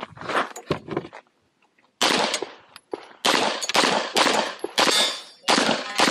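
Pistol shots fired in quick strings: a few shots, a pause of about a second, then a fast run of shots.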